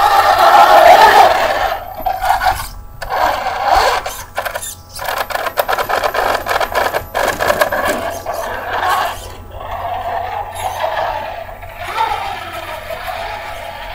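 Traxxas Slash 4x4 VXL radio-controlled truck driving on loose dirt. Its brushless motor and drivetrain whine rises and falls with the throttle, loudest in the first second or two, and its tyres scrabble in the dirt.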